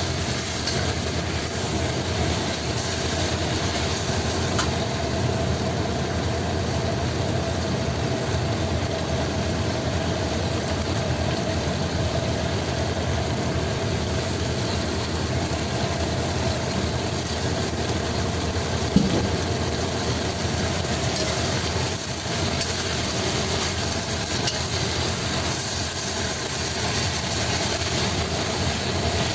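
Steady hum and hiss of stovetop wok cooking, with one brief knock about two-thirds of the way through.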